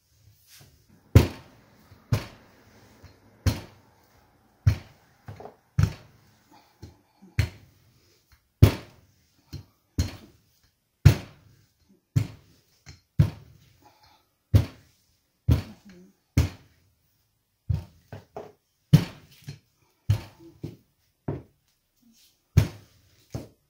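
Rolling pin knocking on a pastry mat over the countertop while pastry dough is rolled out, a sharp thud roughly once a second with each push and pull of the pin.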